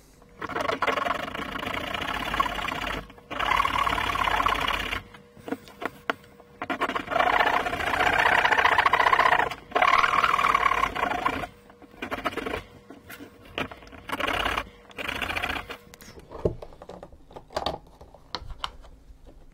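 Swiss Army knife saw blade cutting through a grey plastic enclosure: long runs of fast back-and-forth rasping strokes with brief pauses. After about twelve seconds come shorter scrapes and scattered clicks as the case comes apart.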